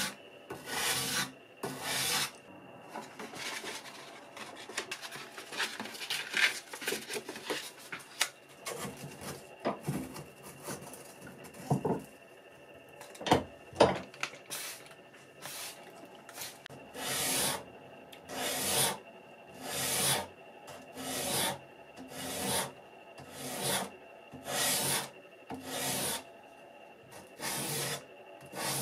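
280-grit sandpaper rubbed by hand along a knife handle clamped in a vise. Uneven scraping strokes at first, settling about halfway in into regular back-and-forth strokes, roughly one a second.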